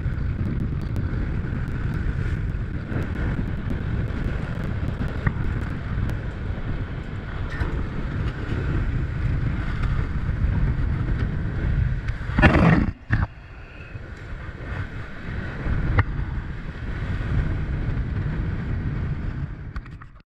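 Strong wind buffeting a GoPro camera's microphone, with surf beneath it. About twelve seconds in there is a brief loud burst, after which the wind noise drops for a moment and then builds back up. The sound ends abruptly.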